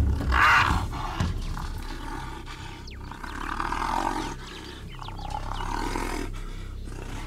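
Trapped brown hyena growling and snarling at the approaching darter: a loud rough burst at the start, then two more growling bouts about three and six seconds in. The animal is stressed and defensive in the cage.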